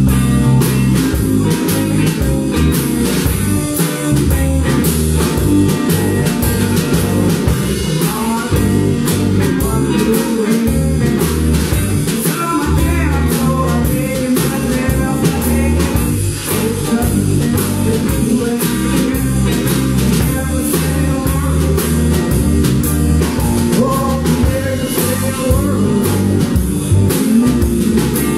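Live blues-rock band playing: electric guitars over a steady drum beat.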